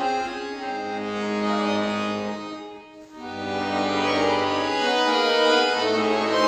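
Solo accordion (bayan) playing slow, sustained chords over held bass notes. The sound fades to a brief pause about three seconds in, then comes back with fuller held chords.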